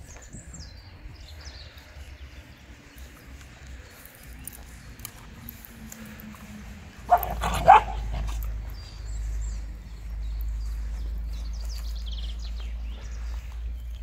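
A Central Asian Shepherd (Alabai) dog barking twice in quick succession about seven seconds in. A steady low rumble follows the barks.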